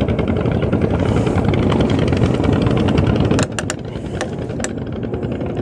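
An engine running steadily with a fast, even beat. A few sharp clicks come between about three and a half and four and a half seconds in, as the engine sound dips slightly.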